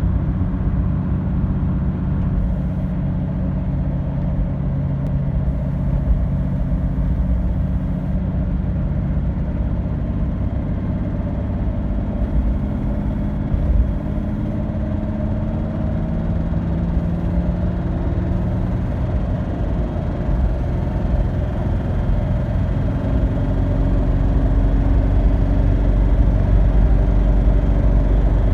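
Freshly rebuilt Toyota 2H inline-six diesel engine running steadily, with the ticking noise whose cause the owner cannot find. The low rumble grows louder near the end.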